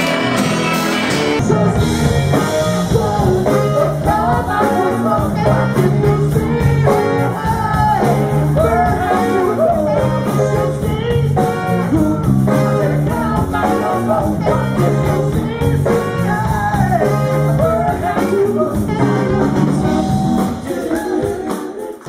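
Live band music with a lead singer over guitars, bass and drums. The recording switches to a different performance about a second and a half in, and the music fades out at the end.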